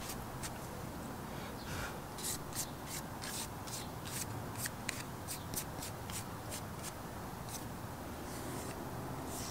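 Hands rubbing a small black plastic car interior trim piece in quick strokes, two or three a second, wiping lint off it between paint coats.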